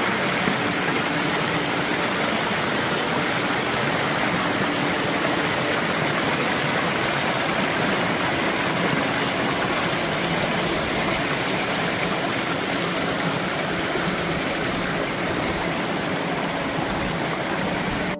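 Shallow mountain creek running over rocks and small boulders: a steady rush of water.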